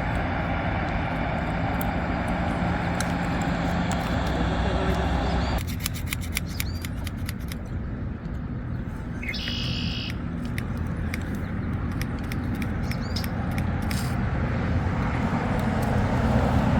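Steady low engine rumble that changes abruptly about five and a half seconds in, with scattered faint clicks.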